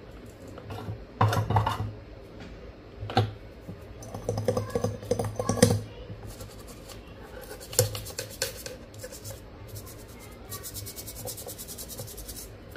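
Scraping, rubbing and tapping as a phone CPU chip is scrubbed clean on a silicone repair mat, with a few sharper knocks. Near the end comes a run of quick, even scratching strokes.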